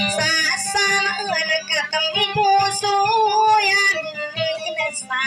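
A woman singing a Maranao dayunday song to her own acoustic guitar. Her voice bends and wavers through ornamented phrases, with one long held note in the middle, over light strummed chords.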